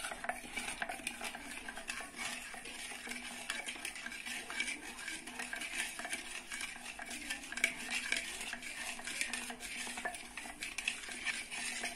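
Wooden spatula stirring milk in a metal bowl: a steady swishing of liquid with frequent small scrapes and taps against the bowl's side. The milk is being mixed until the sugar dissolves.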